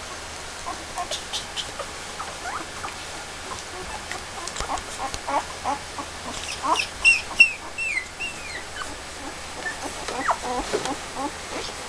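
One-week-old Airedale terrier puppies squeaking and whimpering in many short rising chirps. These become louder and more frequent from about four seconds in, with a few longer, higher, falling cries near the middle. They are the hungry calls of newborn pups seeking to nurse.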